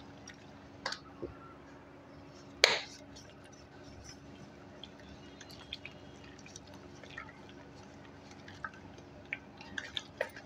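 A hand beating ghee with ice in an aluminium bowl, the ghee whipped to a white cream: soft wet squelches and small clicks, with one sharp click about two and a half seconds in and more clicks near the end.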